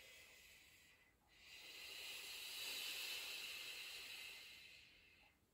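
A woman's long, faint exhale, a breathy hiss that swells from about a second in and fades away over some three and a half seconds, breathed out during an exercise.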